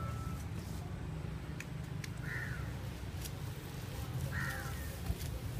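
A crow cawing twice, about two seconds apart, over a steady low background rumble.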